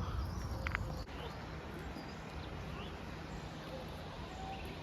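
Faint, scattered bird chirps over a steady outdoor background hiss, with a single sharp knock about a second in.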